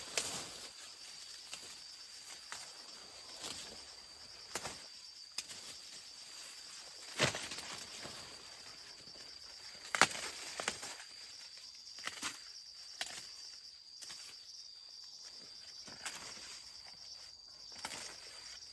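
A steady, high-pitched insect drone, with scattered rustling and a few sharp knocks, two of them louder near the middle.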